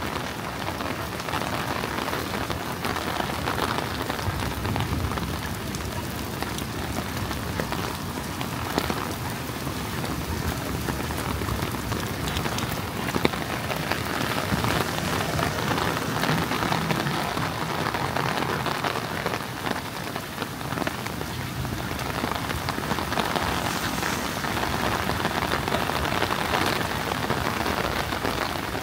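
Heavy rain falling steadily, a dense patter of drops on surfaces with scattered sharper drop ticks.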